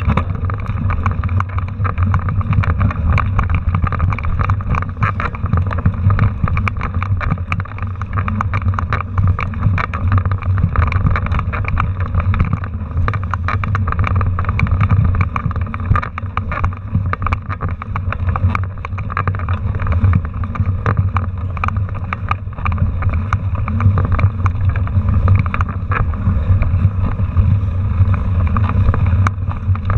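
Mountain bike riding over a rough dirt trail, heard through a handlebar-mounted camera: a steady low rumble of tyre and frame vibration with constant rattling clicks, and some wind on the microphone.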